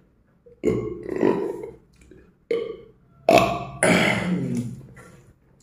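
A man's short wordless vocal noises, burp-like and breathy, four in a row with the longest near the end, as he eats spicy fried chicken.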